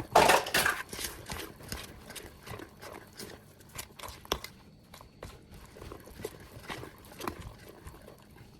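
A spoon or spatula scraping and knocking in a mixing bowl while thick cookie batter with chocolate chips and marshmallows is folded. There is a loud scrape just after the start, then irregular light knocks and clicks.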